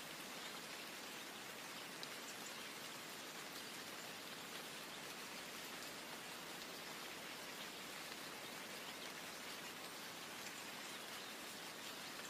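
Steady rainfall: an even hiss of rain with faint ticks of individual drops.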